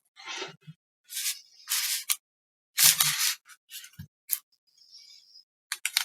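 Small tools working on a circuit board during SMD capacitor removal: irregular short scraping and tapping handling sounds, a few faint knocks among them.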